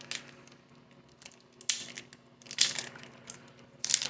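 Crinkling and rustling of a baseball-card pack wrapper being handled and torn open. It comes in short rustles at first and becomes louder and continuous near the end, over a faint steady low hum.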